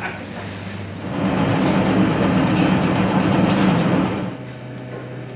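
Bakery machinery running: a steady mechanical rumble with a low hum, louder for about three seconds in the middle and dropping to a quieter hum about four seconds in.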